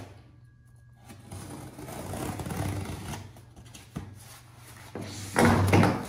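Cardboard box being handled while its nearly 20-year-old packing tape is opened, with rustling cardboard and tape. About five and a half seconds in, a loud scrape and rustle as the box is tipped over on the wooden table.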